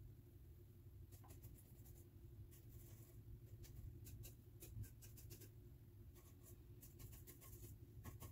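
Near silence: a low steady hum with faint scratching and small ticks in scattered clusters, from light hand work on a painted cabinet face frame.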